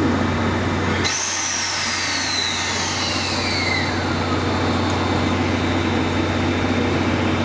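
A JR West 221 series electric train approaching, cut off about a second in by a steam locomotive standing at the platform: a steady hiss and hum, with a high whine that falls in pitch over about three seconds.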